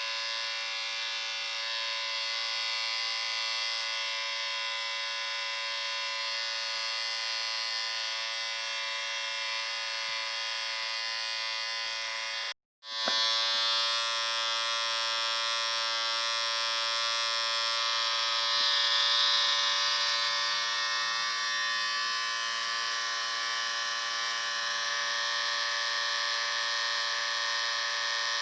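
Electric shaver running with a steady buzzing hum. It cuts out completely for a split second a little under halfway through, then starts again at a slightly different pitch.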